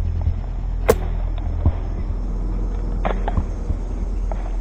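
Airsoft gunfire: one sharp shot about a second in, then a few lighter clicks and knocks, over a steady low rumble on the microphone.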